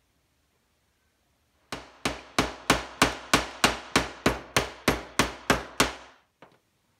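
Small hammer tapping a metal punch about fourteen times in a quick, even rhythm of about three strikes a second, each strike ringing briefly, then one faint knock.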